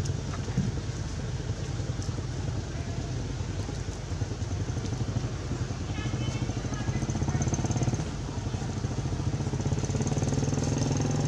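A steady low engine drone, like a motor idling, with a few faint short high-pitched chirps about six seconds in.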